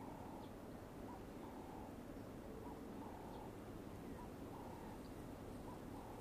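Faint outdoor wildlife ambience: a low steady hiss with a short animal call repeating roughly every second to second and a half.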